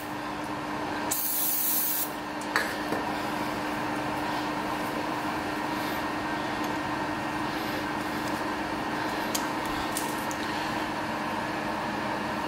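A burst of about a second from an aerosol can of Trefolex cutting fluid, sprayed about a second in, with a short click just after. A steady machine hum with a constant low tone runs underneath; this is the lathe running.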